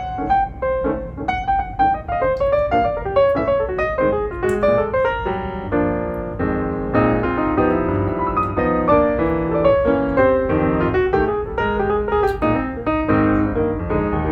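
Background piano music, a run of quick notes that thickens into fuller chords in the middle.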